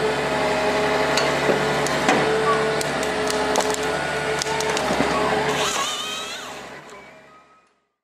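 Tracked forestry harvester processing a felled conifer: engine and hydraulics running steadily while the harvester head strips and cuts the trunk, with repeated cracks and snaps of wood and branches. A short rising whine comes near the end before the sound fades out.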